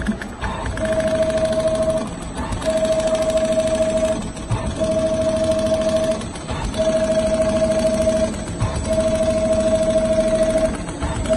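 Automatic rotating-head CNC sewing machine stitching leather upholstery. It runs in five stretches of about a second and a half, each a steady high whine over a lower mechanical rattle, with pauses of about half a second between them.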